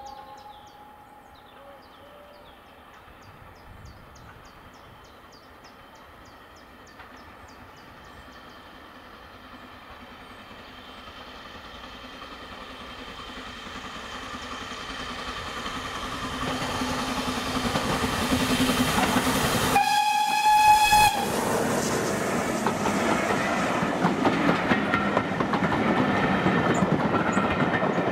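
BR Standard 4MT 4-6-0 steam locomotive approaching and growing steadily louder, with birds chirping faintly at first. About twenty seconds in it gives one whistle blast of roughly a second. Its coaches then run close past with the clatter of wheels over the rail joints.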